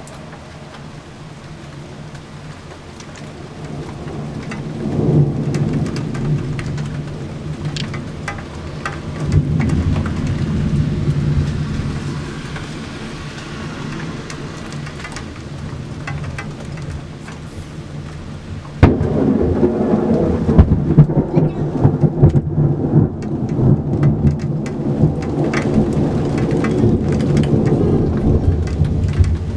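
Thunderstorm: thunder rumbling over steady rain, swelling and fading twice. About two-thirds of the way through a sudden loud crack sets off a loud, crackling roll of thunder that lasts to the end.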